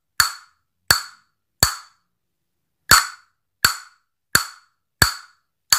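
Pair of castanets played in the ria exercise: single sharp clacks about 0.7 s apart, the last three strokes of one ria, a pause of about a beat, then a full ria of five evenly spaced clacks. Each ria is the four right-hand fingers striking in turn (little, ring, middle, index) followed by one left-hand stroke.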